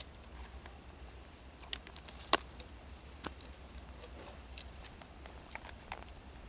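Scattered faint clicks and crackles at irregular intervals, with one sharper click about two seconds in, over a low steady rumble.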